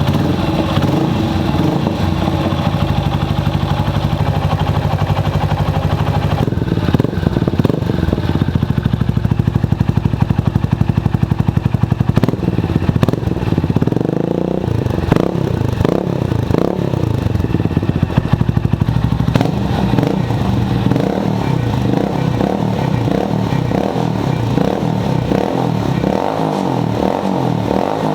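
Honda FTR223 single-cylinder engine running, steady at first, then revved up and down several times, with a run of quick throttle blips in the last third.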